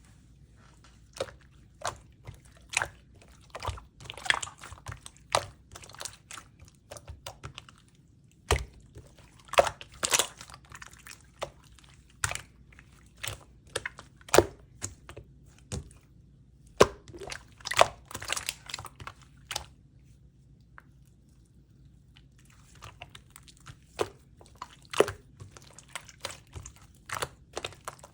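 Slime being squeezed, stretched and pressed by hand, giving an irregular string of sharp clicks, pops and squishes, with a pause of a few seconds about twenty seconds in.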